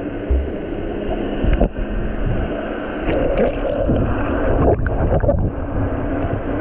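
Muffled underwater water noise picked up by a submerged action camera: a steady rushing with occasional gurgles and clicks from a swimmer moving in the sea.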